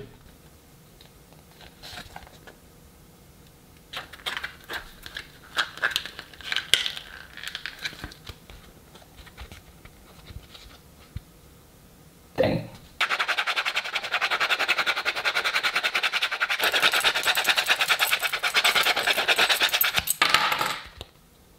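Clear-coated, hydro-dipped TPU phone case being handled and flexed, with faint clicks and rustles. Then comes a knock, followed by about seven seconds of rapid, repeated hard scratching strokes across the case's surface, a test of whether the coating scratches.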